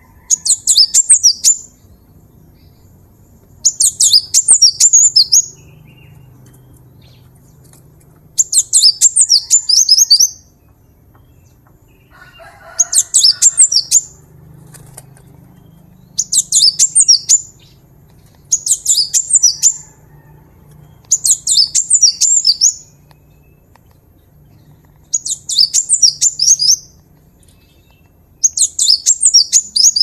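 Cinereous tit (gelatik batu) singing: short bursts of rapid, high notes, each about a second or a second and a half long, repeated nine times a few seconds apart.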